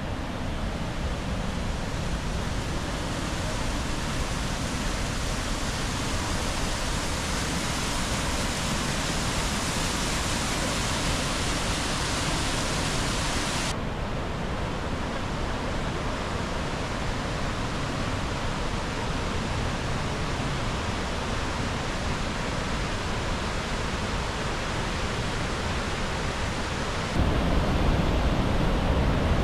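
The Rhine Falls, a large river waterfall, rushing steadily. The sound shifts abruptly about halfway through and again near the end, where it turns louder and deeper.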